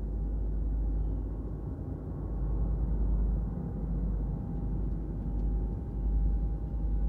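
A deep, steady rumbling drone with a faint high hum held above it: dark ambient sound design under the scene.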